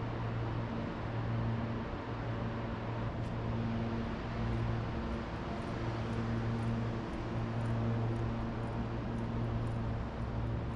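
City ambience: a steady wash of noise under a low hum that fades out and returns every second or two.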